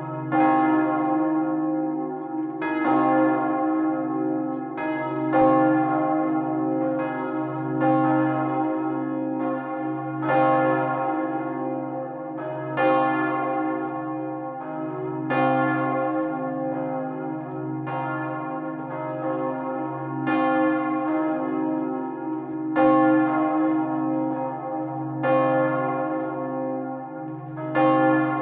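Two swinging church bells ringing together in full peal, heard close up in the belfry: a 1,985 kg Paccard bell of 1885 sounding C3 and a 1,140 kg Wauthy bell of 1922 sounding E-flat3. Their clapper strokes alternate, about one every 1.2 seconds, each ringing on over a continuous deep hum.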